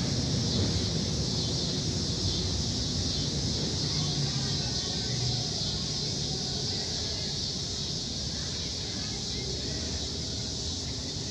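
Distant vehicle rumble fading away over the first several seconds, under a steady high hiss.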